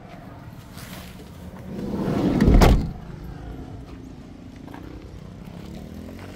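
A rumble that builds for about a second and ends in one loud thump about two and a half seconds in, over a steady low background hum.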